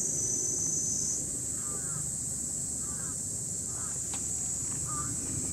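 Steady high-pitched insect chorus, with a short chirping call repeated about once a second over a low background rumble.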